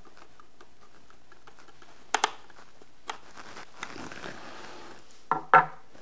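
Small screwdriver turning a screw into the plastic base of a security-system base station: faint, evenly spaced ticks, then a couple of sharper clicks. Two louder knocks near the end.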